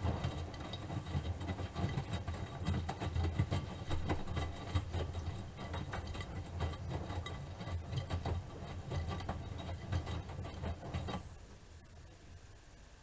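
Miele Softtronic W3923 washing machine turning its drum during the wash: a low motor rumble with irregular knocks and clatter from the tumbling load. The drum stops about eleven seconds in, and the sound drops to a quiet hum.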